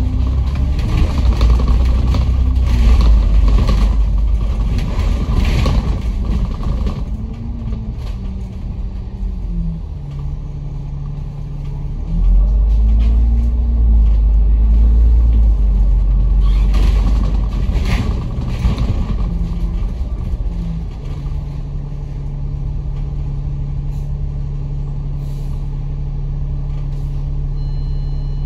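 A bus's diesel engine heard from onboard, pulling away twice with its note rising and falling through gear changes, then settling to a steady idle for the last several seconds.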